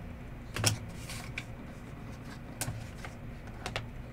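Trading cards being handled: a few short, sharp clicks and snaps as cards are flipped and set down, over a low steady hum.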